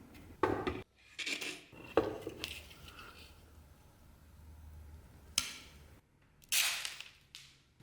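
Rusty metal being handled and worked: a few sharp knocks and clinks with scraping in between, and a longer, louder scrape near the end.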